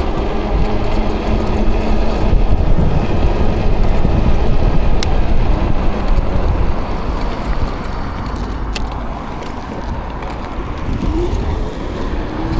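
Wind rushing over the microphone and road noise while riding a Ridstar Q20 electric bike at speed, easing off about two-thirds of the way through as the bike slows.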